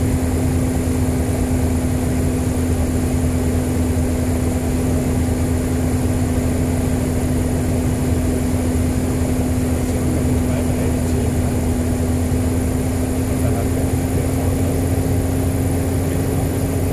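Diamond DA40 TDI's diesel engine and propeller droning steadily, heard inside the cockpit, with one unchanging engine tone over a low hum, on final approach.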